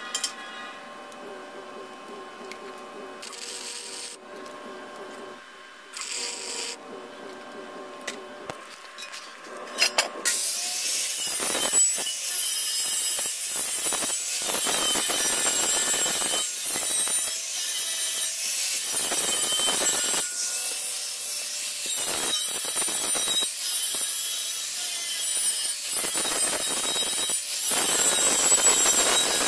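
Handheld electric angle grinder grinding a steel bar, throwing sparks. It starts about ten seconds in and runs loud, dipping briefly now and then as the disc is eased off and back onto the metal. Before it there is a quieter stretch with two short hissing bursts.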